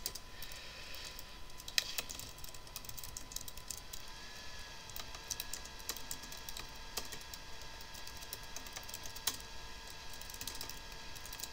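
Typing on a computer keyboard: quick, irregular keystrokes. Underneath, a faint steady high whine, with a second, slightly higher tone joining about four seconds in.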